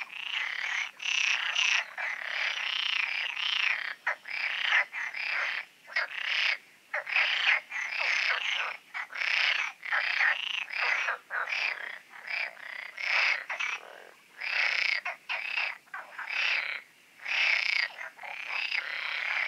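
A chorus of many European green water frogs croaking together: overlapping rasping calls in bursts of half a second to a second, with brief gaps between them.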